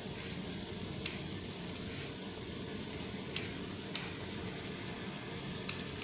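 Lego remote-control car driving across a tile floor: a steady hissing whir from its small electric motors and plastic gears and wheels, with a handful of sharp, irregular clicks.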